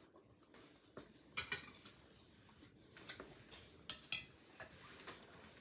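Faint eating sounds: a metal spoon and clam shells giving several short clinks and clicks against the dishes.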